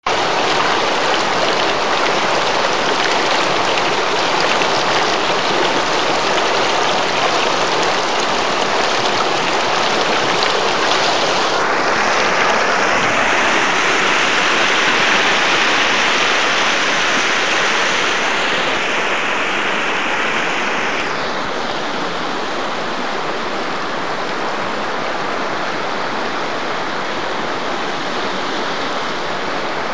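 Shallow river rushing over rocks in rapids, a loud steady wash of water. The sound turns brighter and hissier about twelve seconds in, then softens slightly a little after twenty seconds.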